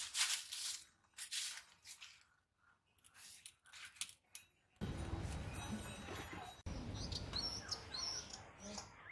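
Dry leaves and thin sticks rustling and crackling in several short bursts as they are pushed into the fire-hole of a clay stove. About five seconds in this gives way to a steady outdoor rumble and hiss with birds chirping over it.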